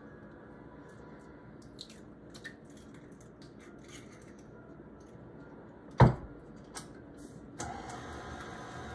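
Light handling clicks, then a single sharp knock about six seconds in as an egg is cracked against the rim of a steel stand-mixer bowl. Near the end a tilt-head stand mixer switches on and runs with a steady hum.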